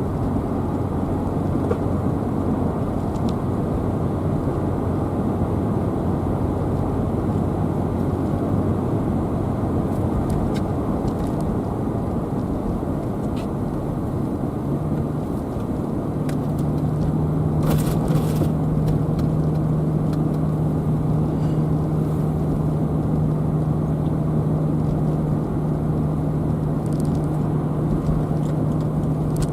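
A car driving along the road: steady tyre and road noise under a low engine hum, which steps up to a higher pitch a little past halfway.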